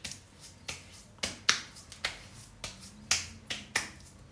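Hands patting witch hazel onto a freshly shaved face: about ten sharp, wet slaps at an uneven pace.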